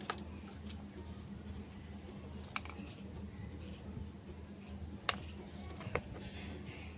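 A few sharp clicks and taps, about four, spaced a second or two apart, over a steady low hum: small objects being handled.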